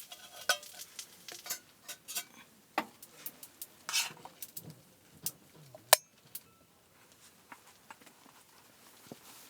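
Metal utensils clinking, knocking and scraping against cookware and dishes in quick irregular strokes, the sharpest knock about six seconds in, then only a few faint ticks.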